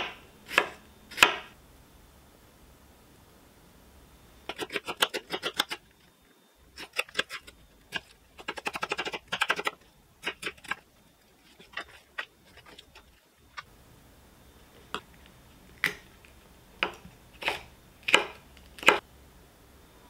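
Chef's knife slicing onion, and later green pepper, on a bamboo cutting board: each stroke a sharp tap of the blade on the wood. A few single cuts are followed by quick runs of about a dozen strokes, then a few spaced cuts near the end.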